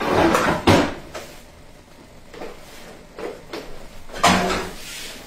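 Kitchen handling noises: a rustle and a sharp knock in the first second, a few light knocks, then a louder clatter at the stove about four seconds in.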